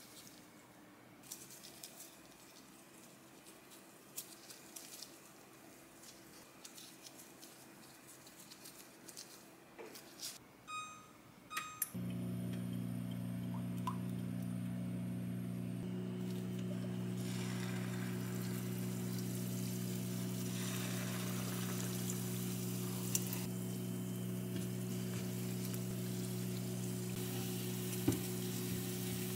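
Soft rustling of gloved hands shaping dough, then beeps from an induction cooktop as it is switched on, followed by the hob's steady low hum. Cooking oil is poured into the saucepan, and from about two-thirds of the way in, doughnuts sizzle as they deep-fry in the hot oil.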